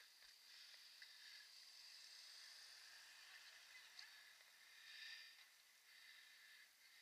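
Near silence: faint outdoor hiss with a few faint clicks.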